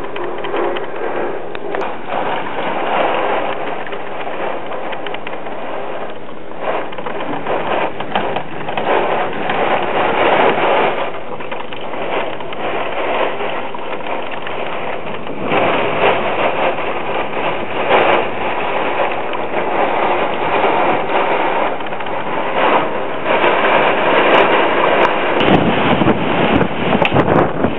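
Hurricane wind and rain: a steady hiss that swells and eases in gusts. Near the end, wind buffeting the microphone adds a low rumble.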